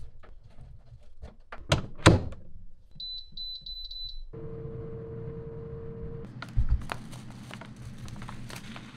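A couple of sharp knocks, then a kitchen appliance's electronic beeper sounding about six quick short beeps. A steady low hum follows for about two seconds, with a thunk and light clattering after it.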